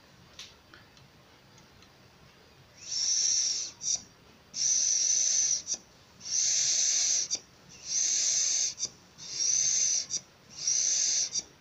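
Mini portable hand air pump being worked: from about three seconds in, six strokes each push out a hiss of air through the hose, roughly one every second and a half.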